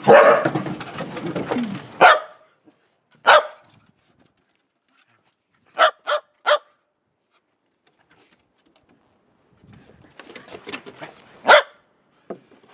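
Shetland sheepdog puppy barking in short, sharp barks spaced out over several seconds, with a quick run of three about six seconds in.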